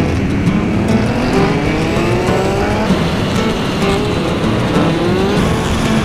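Motorcycle engines accelerating, the pitch climbing and dropping back several times as the bikes shift up through the gears, over steady road and wind noise.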